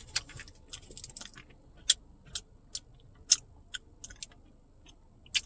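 Irregular wet mouth clicks and smacks from sucking on a Halls menthol cough drop, about a dozen sharp clicks, bunched in the first second or so and then spaced out.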